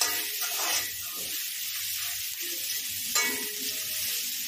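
Chopped onions, green chillies, peanuts and curry leaves sizzling in hot oil in a metal kadhai. A slotted steel spatula scrapes across the pan as they are stirred, with the sharpest scrapes at the start and about three seconds in.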